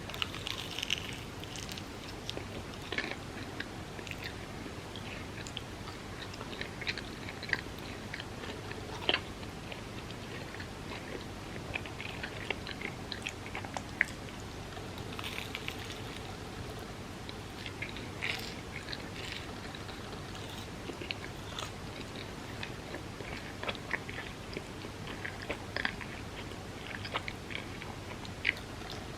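A person eating close to the microphone: chewing and biting, with many short clicks scattered irregularly throughout.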